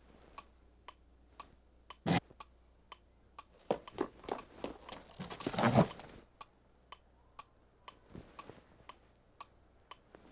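Steady ticking, about two ticks a second, with a sharp knock about two seconds in and a flurry of rustling and knocking from about three and a half to six seconds in.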